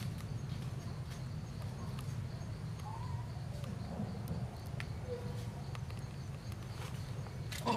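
Outdoor ambience: a steady low rumble with a few faint, short chirp-like animal calls in the middle and a sharp click near the end.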